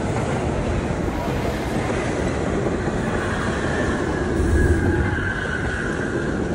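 Subway train running into a station: a steady rumble of wheels on rail, with a high wheel squeal rising over it about halfway through.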